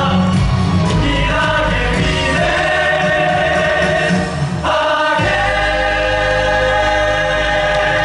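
Musical-theatre cast singing together through the theatre's sound system over loud backing music, in long held notes. A little past four seconds in the music drops out briefly, then a new phrase comes in with heavy bass.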